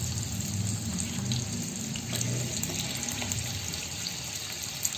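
Garlic cloves sizzling in hot oil for a tempering (baghar): a steady hiss with a few faint pops.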